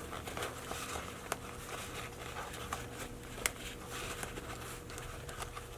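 Light clicks and rustling as a zipper slider is worked onto the two rows of teeth of a backpack zipper, with a couple of sharper clicks, over a steady low hum.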